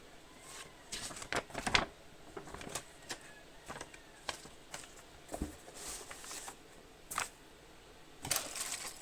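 Keyboard box being unpacked by hand: cardboard and packaging handled, with scattered knocks and clicks and short rustles.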